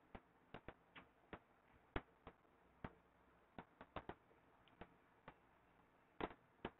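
Faint, irregular clicks and taps, roughly two or three a second, from a stylus tapping and writing on a pen tablet.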